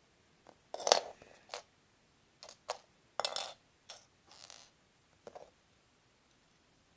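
Small plastic Lego pieces being handled: a string of short clicks, clinks and rustles over the first five or so seconds, loudest about a second in and again a little after three seconds.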